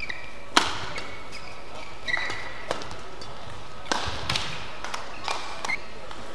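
Badminton rally: sharp racket hits on the shuttlecock roughly a second apart, the first one the loudest, with short shoe squeaks on the court floor between them.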